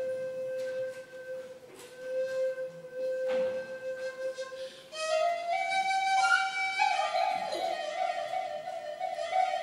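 Serbian folk flute played live: long held low notes with short breaks, then about halfway in a louder melody stepping up through higher notes.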